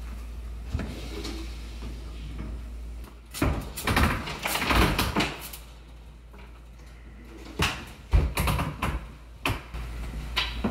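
Frigidaire Professional wall oven's metal body sliding and scraping out of its cabinet opening. There are two spells of scraping and clunking, one beginning about three and a half seconds in and another about two seconds after it ends.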